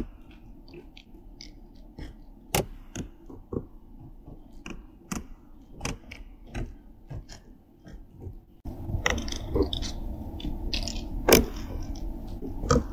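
Field recording of sharp, irregular clicks and short whispery snaps over a low hiss; the hiss grows louder about two-thirds of the way through. The recordist believes these are Sasquatch whispering and clicking.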